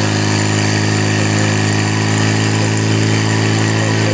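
Portable fire pump engine running steadily under load, an even drone with no change in pitch, pumping water through the attack hoses during a firesport fire attack.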